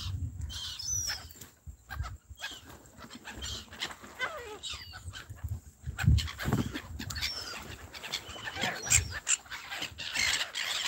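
A flock of gulls calling: many short, overlapping calls that rise and fall in pitch, getting busier near the end, over low rumbles of wind on the microphone.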